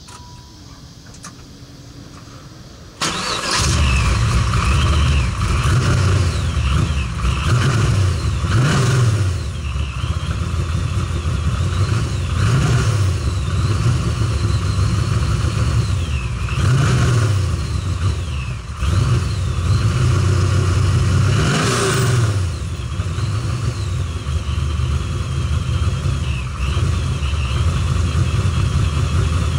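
Supercharged LT1 V8 of a Camaro Z28 starting about three seconds in, then idling with several throttle blips. During the blips the supercharger whine rises and falls, and as the throttle shuts the blow-off valve vents with a short hiss.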